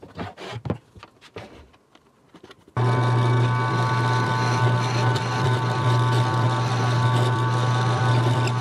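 A few light clicks and knocks of parts being handled. About three seconds in, an electric power tool motor starts abruptly and runs at a steady speed, with a strong low hum and a steady whine.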